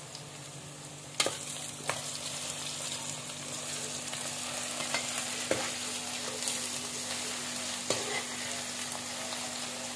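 Sliced onions and garlic-ginger paste sizzling as they brown in mustard oil in a metal pan. A metal spoon stirring them scrapes and clicks against the pan a few times, the first about a second in.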